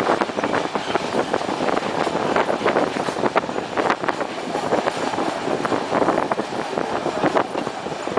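Passenger train running on the rails: a steady rumble of wheels and cars, full of dense, irregular clatter and knocks.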